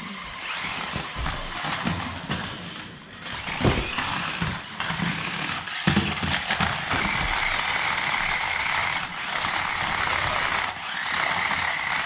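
Small electric motor of a toy remote-control stunt car whirring, steadiest and loudest in the second half with a held high whine, and two thumps about four and six seconds in, which fit bare feet on foam gym mats.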